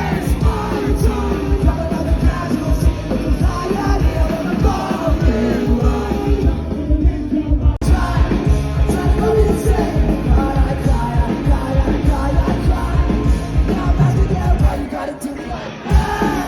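Live rock band playing loud with a singer. The music breaks off sharply about eight seconds in and picks straight up again, as at a cut between clips.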